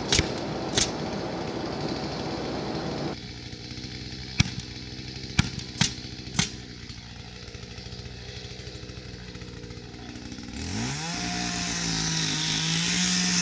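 Fence-building work: four sharp knocks, then a power tool's motor spins up, runs at a steady pitch for a few seconds and winds down.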